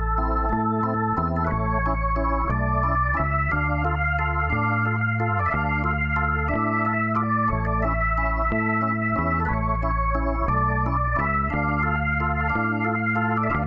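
Instrumental background music with sustained organ-like keyboard chords and a held bass line, changing chord about every second.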